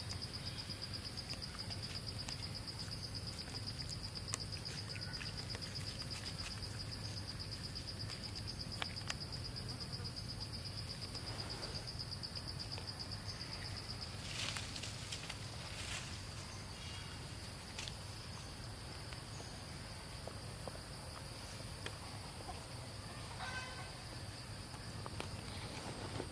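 Insects droning steadily at a high, even pitch; one drone stops about halfway through while a higher one carries on. A few faint clicks.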